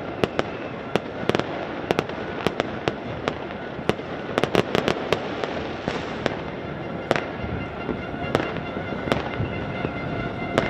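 Fireworks and firecrackers going off all over a city: a dense, continuous crackle with many sharp bangs at irregular intervals, thickest around four to five seconds in.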